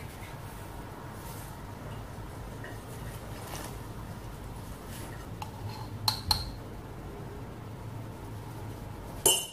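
Metal spoons clinking against a glass mixing bowl and jar: a couple of sharp clinks about six seconds in and a louder one near the end, over a low steady hum.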